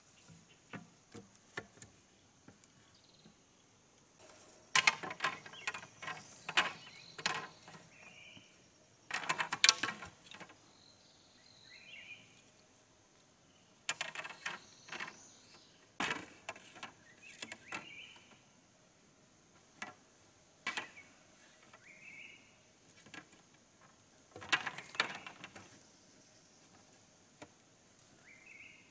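Bamboo poles knocking and clattering in bursts of rapid sharp clicks as they are handled and fitted into a hut frame, over a steady high insect drone with a few short bird chirps.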